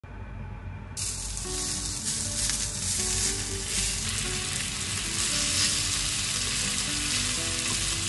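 Thin-sliced pork sizzling in a hot stainless steel frying pan as it is stirred with chopsticks. The loud, even sizzle starts suddenly about a second in.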